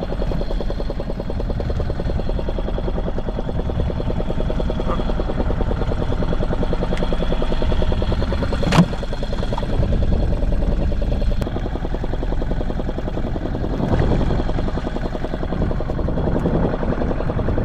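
Small fishing boat's engine running steadily with a fast, even pulse, and one sharp knock about nine seconds in.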